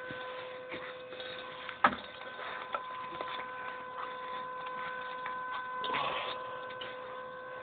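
A steady electrical or mechanical hum at a single pitch, with scattered light clicks and ticks, the sharpest about two seconds in, and a brief rustle near six seconds.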